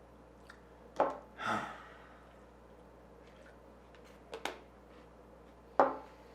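A sharp thud about a second in, followed at once by a heavy sigh. Two quick thuds come a little past four seconds, and another near the end.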